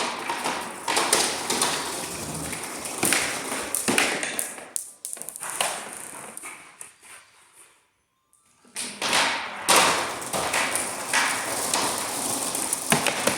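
A handful of marbles rattling and clattering down a homemade marble run of bendy plastic tubes and cardboard tubes, with many quick clicks and knocks. The rattle dies away for about a second midway, then starts again.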